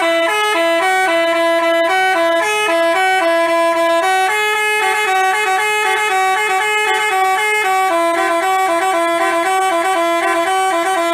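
Basuri telolet bus horn, a multi-trumpet musical horn, playing a tune of quickly changing held notes, two pitches often sounding together. It cuts off sharply at the end.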